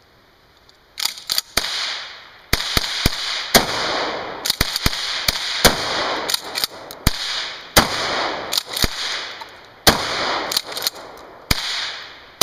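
Gunfire from a 12-gauge shotgun and a scoped rifle, starting about a second in. About twenty sharp shots follow, some coming in quick runs a fraction of a second apart, each trailing off in an echo.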